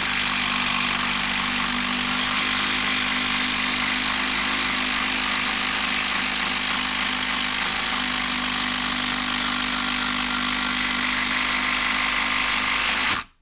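Milwaukee brushed 12-volt impact driver hammering steadily as it drives a long TimberLOK screw into a log, stopping suddenly about thirteen seconds in as the screw head seats.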